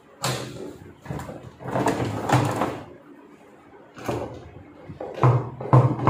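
Plastic inner drum of a top-load washing machine knocking and scraping against the tub as it is lowered into place, in a run of irregular thumps.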